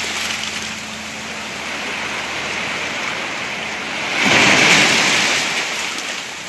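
Sea surf washing onto the beach: a steady rushing of water, with one wave breaking louder a little after four seconds in and fading over about a second and a half.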